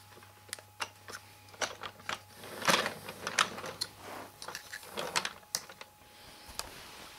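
Toy train set on plastic track giving irregular light clicks and rattles, with two louder rustling swells about two and three-quarter seconds and five seconds in.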